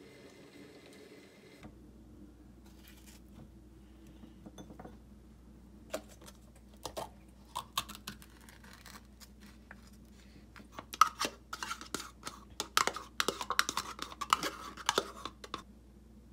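Kitchen clatter of dishes and utensils clinking, knocking and scraping in irregular strokes. It is sparse at first and busiest in the last five seconds.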